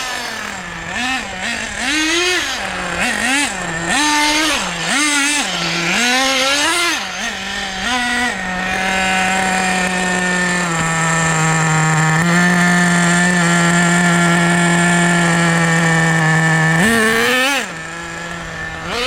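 Team Associated Nitro TC3 radio-controlled car's nitro engine revving up and down in quick throttle blips, then held at a steady high pitch for about eight seconds, and dropping to a lower, quieter pitch near the end.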